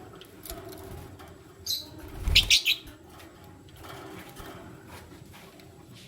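Lovebirds chirping: a short high call, then a quick cluster of three or four loud, sharp chirps about two seconds in, with a fluttering, wing-flap-like sound beneath them.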